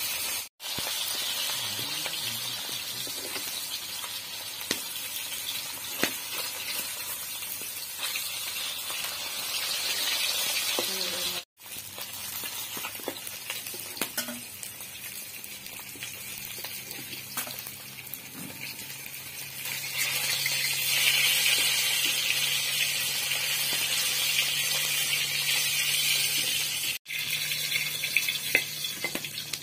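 Fish steaks sizzling as they shallow-fry in oil in a black iron kadai, with a few brief taps and scrapes of a steel spatula against the pan.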